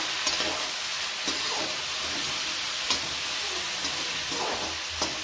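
Chicken pieces sizzling as they fry in a metal wok, a steady hiss, with the spatula clicking and scraping against the pan a few times as they are stirred.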